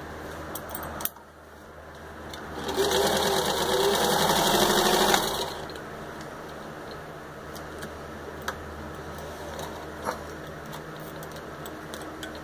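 Singer 15-91 sewing machine, with its gear-driven potted motor, stitching through four layers of leather in one run of about two and a half seconds starting near three seconds in. Around it there is a lower steady sound and a few sharp clicks.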